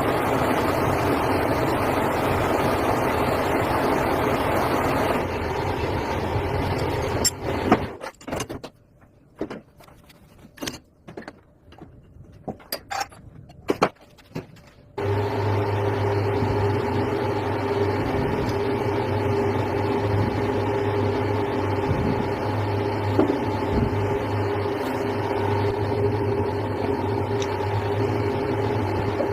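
An electric workshop machine runs steadily with a low hum, of the kind used to rebore a motorcycle cylinder. About eight seconds in it stops, and for several seconds there are only scattered knocks and clicks of metal work. It starts up again and runs on steadily.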